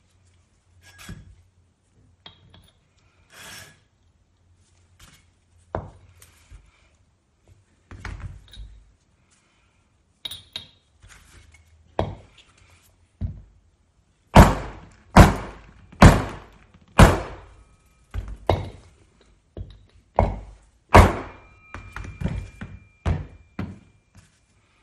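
A string of sharp knocks with a short metallic ring, sparse at first, then louder and regular at about one or two a second from about halfway in.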